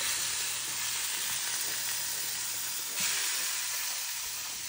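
Air fryer running while it cooks chicken thighs: a steady, loud hiss with no tone to it, jumping up briefly about three seconds in.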